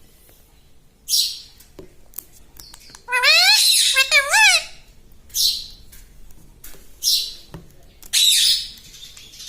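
Pet ring-necked parakeet calling: short harsh squawks, with a run of quick, sharply rising and falling pitched calls a little past a third of the way in.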